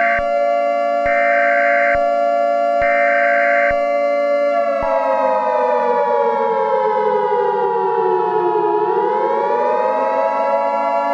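Siren sound effect for an emergency alert, a wailing civil-defense-style siren made of several layered tones. Three short higher beeps sound in the first few seconds. The pitch then slides down for about four seconds and swings back up, while a steady higher tone joins about five seconds in.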